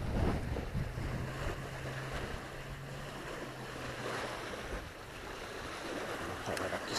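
Small lake waves lapping and breaking on a concrete boat ramp, with wind buffeting the microphone. A low steady hum runs for a few seconds in the middle, and a few sharp clicks come near the end.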